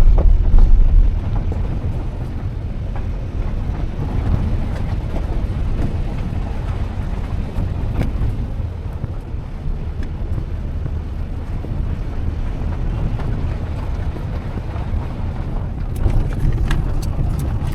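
Wind buffeting the microphone: an uneven low rumble, loudest in the first second. A few faint clicks come through midway and near the end.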